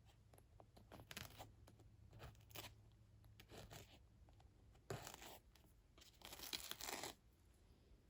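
Faint, irregular scratchy rasps of an X-Acto knife blade working under the hooks of Velcro hook tape, prying trapped lint up out of the hooks.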